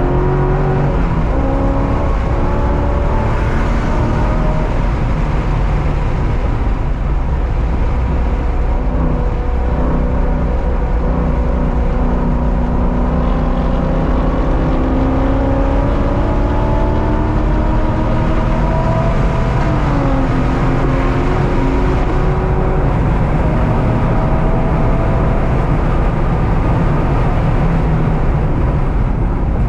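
Track-day car's engine under load on a road course, its pitch climbing through the revs and dropping back several times as it shifts or lifts, over loud, steady low road and wind noise.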